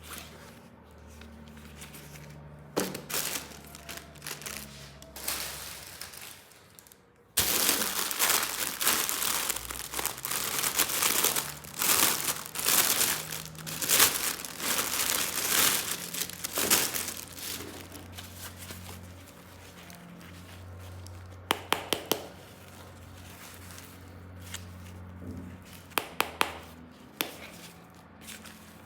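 Packaging being unwrapped: wrapping crinkling and tearing in a busy spell starting about seven seconds in and lasting some ten seconds. Later come two short runs of sharp clicks.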